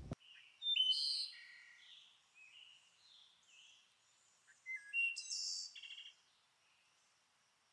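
Wild birds calling in woodland: a string of short chirps and whistles, loudest about a second in and again around five seconds in, then dying away.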